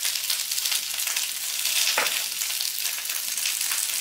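Green beans sizzling steadily in hot oil in a skillet over a gas flame, with one short click about halfway through.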